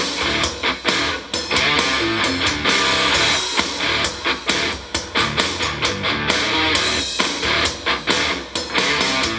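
A rock song with tight drums, bass and guitar plays through a Harley-Davidson touring bike's 6.5-inch upper-fairing speakers. The speakers sit in open brackets with no enclosure or baffle behind them: the 'before' sound for an enclosure comparison.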